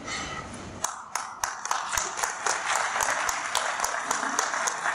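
Audience applause breaking out about a second in, with one nearby pair of hands clapping sharply and evenly, about four claps a second, above the crowd.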